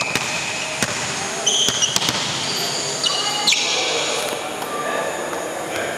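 Balls bouncing and being struck on a hardwood gym floor, several sharp thumps, with a few short high-pitched squeaks.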